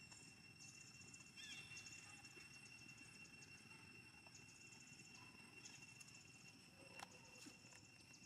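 Faint outdoor ambience of insects chirping in rapid high-pitched pulsed bursts over a steady high drone, with a short falling call about a second and a half in.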